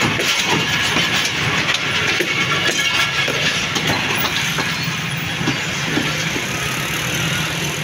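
Passenger coaches of a train rolling past close by: a steady loud rumble and rush of wheels on rail, with scattered clicks as the wheels cross rail joints.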